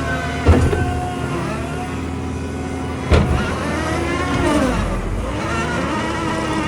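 New Holland C362 skid steer's diesel engine running under working load, its pitch rising and falling as the throttle and load change. Two sharp clunks cut through, about half a second in and about three seconds in.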